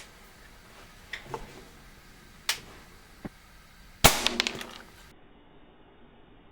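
Air rifle shots with pellets hitting blocks of clay: a few sharp cracks and clicks. The loudest comes about four seconds in and is followed by a brief rattle.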